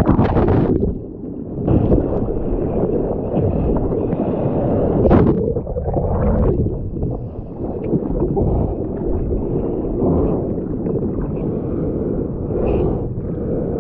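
Surf water rushing and splashing over the camera as a breaking wave washes over the bodyboarder, with a loud splash at the start and another about five seconds in. In between comes the muffled churning rumble of turbulent water while the camera is underwater.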